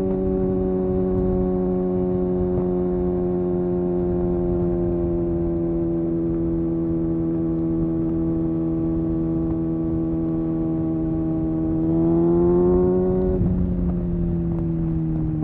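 Kawasaki ZX-6R's inline-four engine running at steady road revs, its pitch slowly sagging. About twelve seconds in the revs rise briefly under throttle, then drop suddenly and keep falling.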